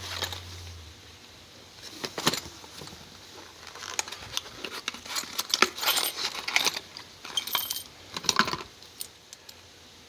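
Metal padlocks and keys clinking and clattering against one another as a case of Paclock 100G padlocks is handled: a run of sharp irregular clinks, busiest in the middle, with one brief ringing note.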